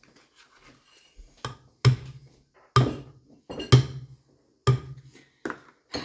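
Spoon knocking against the rim of a plastic single-serve blender cup to shake ice cream off it. It gives a series of sharp knocks at irregular spacing, starting about a second and a half in.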